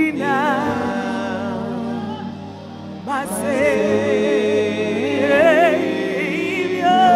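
A woman singing a gospel song with a wide, wavering vibrato, accompanied by a Roland Juno-DS electric keyboard.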